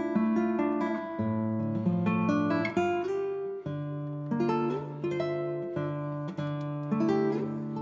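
Background music: an acoustic guitar picking a string of notes and chords.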